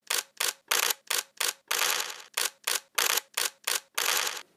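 Logo sound effect: about a dozen sharp, hissy hits in an uneven rhythm, two of them held longer, one near the middle and one near the end.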